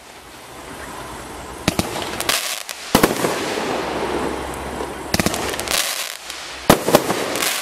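Illuminati Fireworks Dysfunctional 15-shot 500-gram cake firing: about five sharp bangs of shots bursting overhead, with a steady hiss from the burning stars between them.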